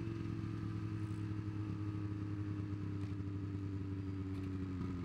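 Snowmobile engine running steadily, its pitch easing slightly lower near the end.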